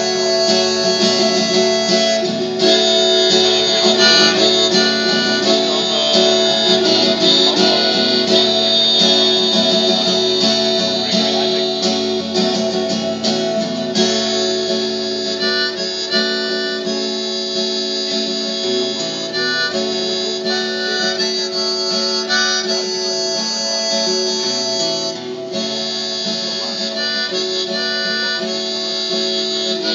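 Live harmonica and acoustic guitar duo, amplified through stage speakers. The harmonica carries held notes over the guitar's accompaniment.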